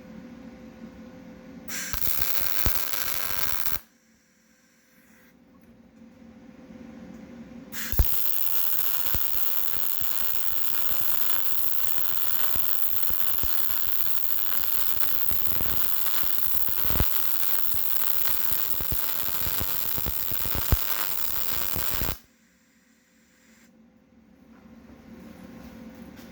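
Vulcan MIGMax 215 MIG welder arc welding: a short burst of about two seconds, then a steady crackling hiss held for about fourteen seconds, each starting and cutting off sharply as the trigger is pulled and released. A low steady hum runs between the two welds.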